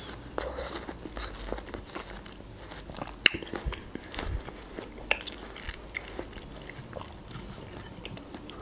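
Close-up chewing of a piece of melon: wet crunches and small mouth clicks, with a sharper crunch about three seconds in and another about five seconds in.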